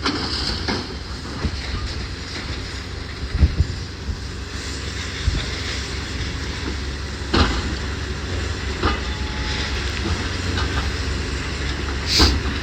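Demolition machinery working on a building: a steady low engine rumble with occasional knocks and crashes of debris, three of them standing out.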